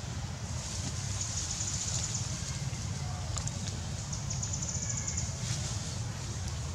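Insects calling in high-pitched buzzing trains about a second long, repeating every few seconds, over a steady low rumble.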